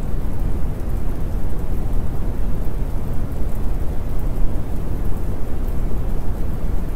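Continuous rain-and-thunder storm ambience: a steady, dense rush of rain with a deep rumble underneath and no distinct strikes or claps.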